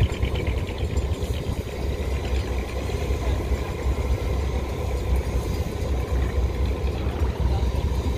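Fishing trawler's diesel engine running steadily as the boat heads out, a continuous low rumbling drone.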